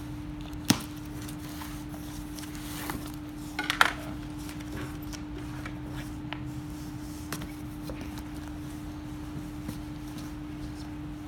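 Cardboard box flaps being folded back and plastic-wrapped shirts handled: a sharp knock about a second in, a brief burst of crinkling just before four seconds, then scattered light rustles and taps. A steady hum runs underneath throughout.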